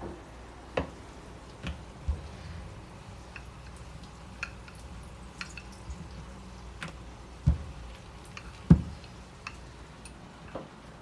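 Scattered light clicks and taps of kitchen work at a counter, with two louder dull thumps about seven and a half and nearly nine seconds in.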